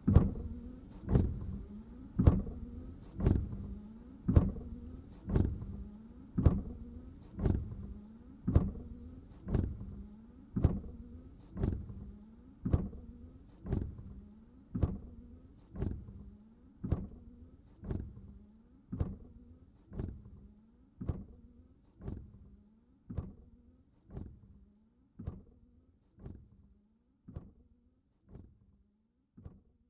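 Car windshield wipers running at a steady pace, about one stroke a second, each stroke starting sharply and trailing off in a short sweep. The strokes grow gradually fainter toward the end.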